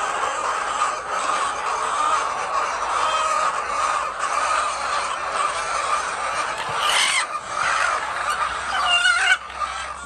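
A large flock of white laying hens clucking and calling together in a steady din, with louder squawks about seven seconds in and again near nine seconds from hens disturbed as eggs are gathered from under them.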